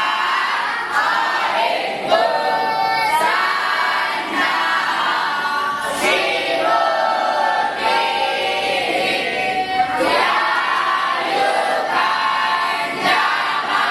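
A group of voices chanting a hymn together in unison, in sung phrases of a few seconds each with short breaks between them.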